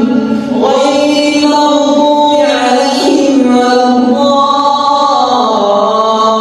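A man's voice reciting the Quran in melodic tajweed style, drawing out long held notes. The melody steps down to a lower pitch about five seconds in.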